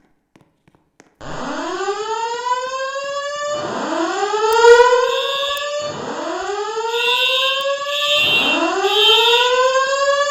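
Building fire alarm voice-evacuation system sounding its whoop evacuation tone: a rising sweep that starts about a second in and repeats about every two and a half seconds. From about halfway a higher tone pulses over the sweeps.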